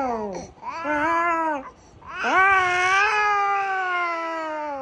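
A sleepy toddler crying: three wails, the last one long and drawn out, falling away at the end.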